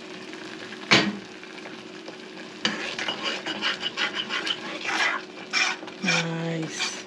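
A glass saucepan lid knocks down once about a second in; then a metal spoon stirs boiling cassava in a saucepan, repeatedly scraping against the pot.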